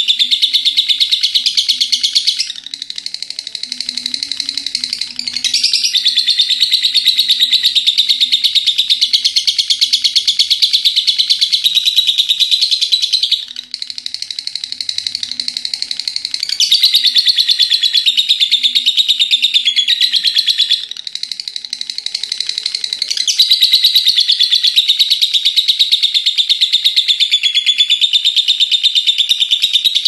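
Caged lovebird giving its long ngekek chatter, a rapid unbroken stream of high chirps with no pause. It drops to softer stretches about three, fourteen and twenty-one seconds in, then comes back up.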